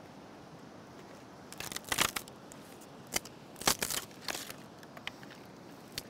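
Dry willow branches snapping and cracking as they are broken apart by hand for firewood: a quick run of sharp cracks about two seconds in, then several more single snaps over the next few seconds.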